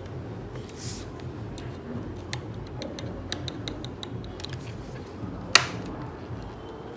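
A run of light, irregular clicks and ticks from hands working on a laptop's hardware, with one sharper, louder click about five and a half seconds in.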